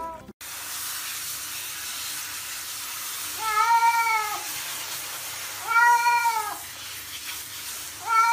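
A cat meowing three times while being showered. Each meow is a drawn-out cry of just under a second that rises and falls in pitch, the last starting near the end. Under the meows runs the steady hiss of water spraying from a hand-held shower head.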